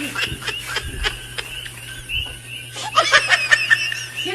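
Laughter: short, quick bursts at the start and again about three seconds in, over a steady low hum.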